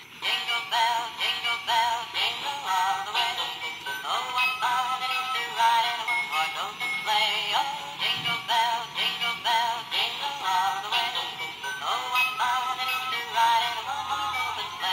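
Musical dancing Santa Claus toy playing a Christmas song with electronic-sounding singing through its small built-in speaker, thin and without bass.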